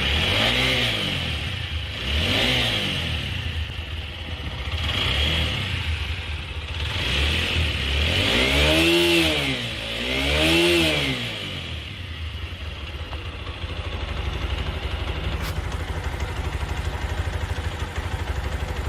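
TVS Apache RTR 160 4V single-cylinder motorcycle engine, blipped four times with the throttle in the first eleven seconds, then settling to a steady idle. It runs without the tapping 'kit kit' tappet noise it had before, cured by the service.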